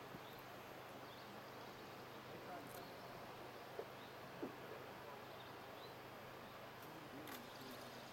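Quiet, steady outdoor hiss with faint distant voices and a few scattered bird chirps; no clear locomotive chuffing or whistle.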